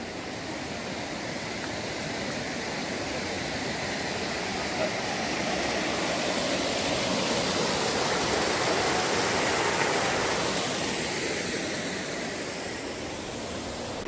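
Water gushing from spouts into a stone bathing tank: a steady rushing that swells to its loudest a little past the middle and then eases.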